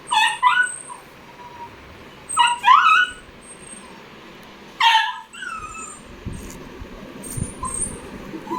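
Beagle puppy whining and yelping in short, high, rising cries, in three bursts: at the start, about two and a half seconds in and about five seconds in. The puppy is crying to be picked up.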